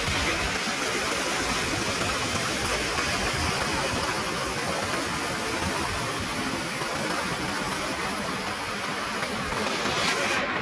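Fast-flowing water of a monsoon-swollen cascade rushing steadily as an even, unbroken hiss.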